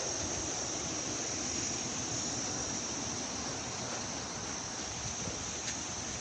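Steady outdoor ambience: a continuous high-pitched insect drone, crickets or cicadas, over an even wash of wind-like noise.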